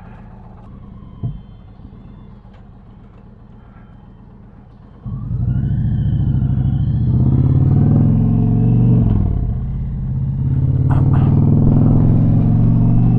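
Indian Challenger's V-twin engine idling low, then about five seconds in opening up hard as the bike pulls away. Its pitch climbs, drops back around a gear change, and climbs again.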